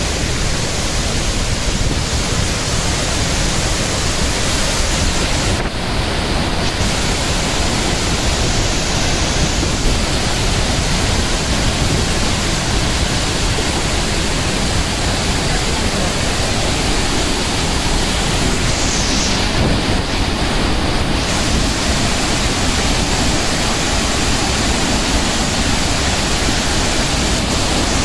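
Waterfall and the white-water stream below it rushing over boulders: a loud, steady noise of falling water.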